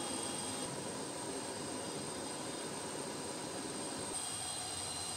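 An aircraft turbine running steadily: a constant rush with a thin high-pitched whine over it. The sound shifts abruptly twice, about a second in and again near the end.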